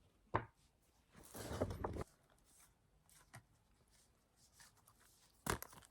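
Faint handling of album contents: a soft click, a brief rustle of paper or plastic, and another sharp tap near the end, over quiet room tone.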